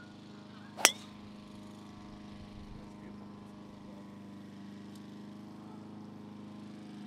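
A golf driver striking the ball off the tee: one sharp, loud crack about a second in. A steady engine drone runs underneath.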